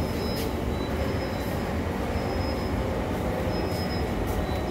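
Steady low hum of a stationary SMRT C151 train's on-board equipment, with the doors open at the platform and station ambience around it. Short, faint high-pitched tones come and go about once a second.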